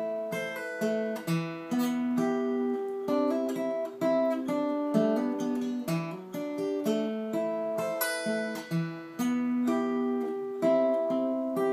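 Acoustic guitar played fingerstyle: a picked, arpeggiated chord pattern at a moderate tempo, the notes ringing over one another.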